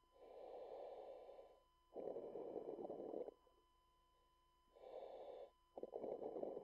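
Commercial diver breathing through a diving helmet's demand regulator: two in-and-out breaths, each a rushing sound of about a second and a half, over a faint steady tone.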